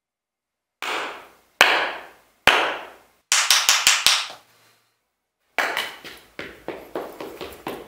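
A rod striking a homemade instep protector worn on the foot, each hit ringing briefly. There are three separate strikes, then a quick run of about five, then another run of strikes near the end.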